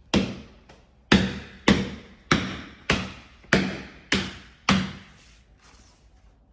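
Hammer blows on a stainless steel countertop: eight sharp knocks, about two a second, each with a short ringing decay.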